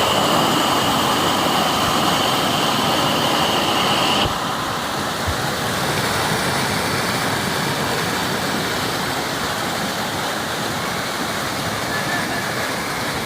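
Rushing rainwater flowing in a steady torrent. A thin steady high tone sits over it for the first four seconds and stops abruptly, with the water a little quieter afterwards.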